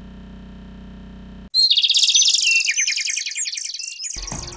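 A faint steady hum, then about a second and a half in a sudden loud, rapid high-pitched chirping trill that steps down in pitch and lasts about two and a half seconds: a bird-chirp sound effect marking a section transition.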